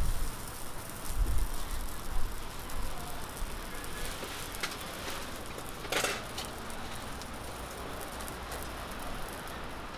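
Millet pancakes and meat patties frying in oil on a flat steel griddle, a steady sizzling hiss. Low rumbles come near the start, and there is a short knock about six seconds in.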